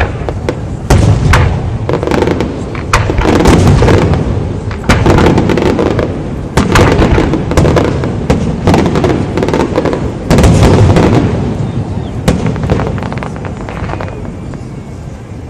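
Fireworks display: a rapid barrage of shell bursts, loud deep booms mixed with many sharp crackling reports, dying down near the end.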